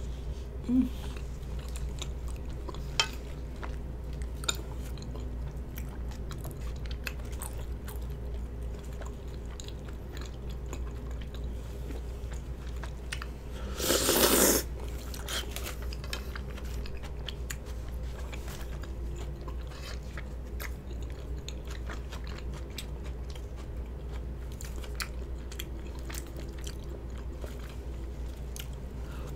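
Close-miked chewing of soft, chewy rice cakes, with small wet mouth clicks and smacks. About halfway through, a loud slurp of spicy broth from a spoon, lasting about half a second.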